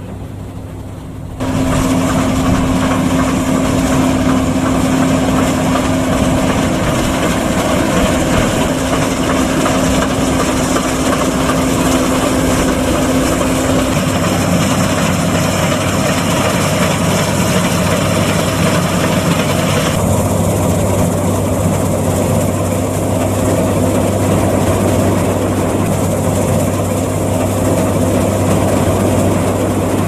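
Massey Ferguson 520 Super II combine harvester running while cutting wheat: steady engine and machinery drone with a constant hum, starting loud about a second and a half in.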